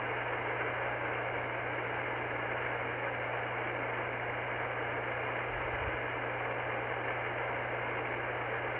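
Steady hiss of band noise from an Icom IC-R30 receiver in lower-sideband mode on the 11-metre CB band, with no station transmitting.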